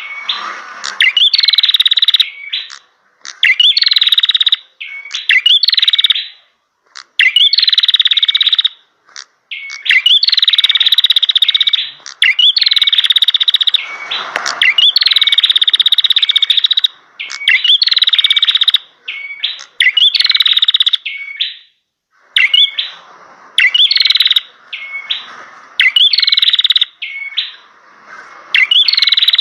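A cimblek, the ashy tailorbird, singing vigorously. Loud, rapid buzzy trilling phrases about one to three seconds long repeat with short pauses between them.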